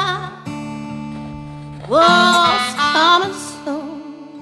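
Background music: acoustic guitar notes ringing and fading, then two long held melody notes that slide up into pitch, about halfway through and again about a second later.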